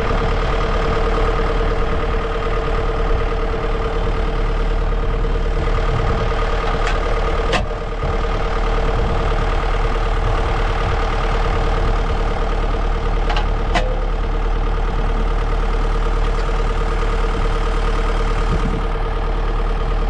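John Deere tractor's diesel engine idling steadily, with a steady tone over the engine note. Two short sharp clicks sound, one about a third of the way in and one about two-thirds in.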